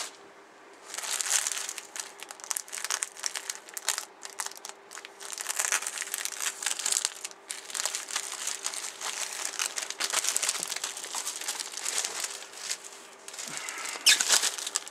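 Clear plastic bag crinkling around a model kit's plastic sprues as they are handled, in an irregular run of crackles that starts about a second in and is loudest near the end.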